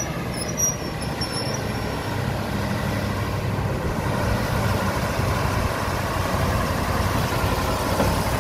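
Mercedes-Benz 2635 truck's diesel engine running as the truck drives up and passes close by, a steady low drone that grows louder.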